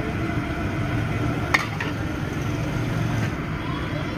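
Spinach moong dal pakodas deep-frying in a large iron kadhai, the oil sizzling steadily under a low traffic rumble. A single sharp metal clink comes about a second and a half in, typical of the perforated skimmer knocking the pan.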